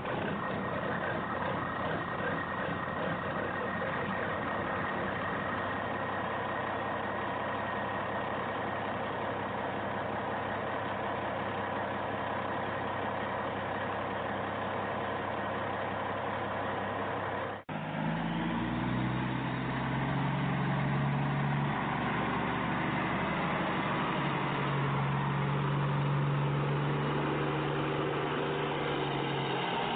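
Heavy truck engine running steadily. About 18 seconds in it cuts off abruptly and resumes as a lower, steadier engine drone whose pitch shifts a little.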